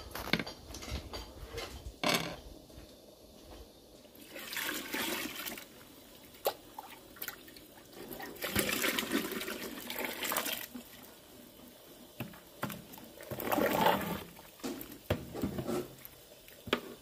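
A metal ladle scooping and pouring thick white liquid into a large aluminium pot of herb soup, three pours with the sound of liquid falling, among a few light clinks of the ladle against the pots.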